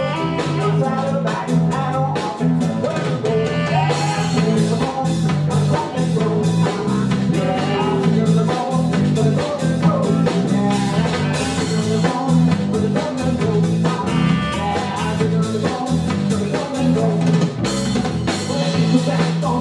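A live band playing an upbeat rhythm-and-blues number: electric bass, drum kit and guitar, with singing over it.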